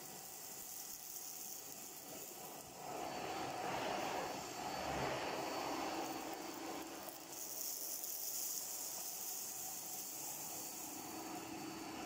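Hitachi CV-95N commercial tub vacuum cleaner running, its 800-watt motor giving a steady rushing hum while the floor nozzle is pushed over carpet. The sound swells about three seconds in and its hiss changes tone as the nozzle moves.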